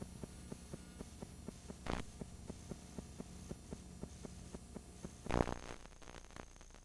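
Videotape audio track with no program sound: a faint hum under a rapid, regular run of soft ticks, several a second. Two short bursts of noise come about two seconds in and about five and a half seconds in, typical of a worn VHS tape's tracking glitches. A faint high steady tone comes in about five seconds in.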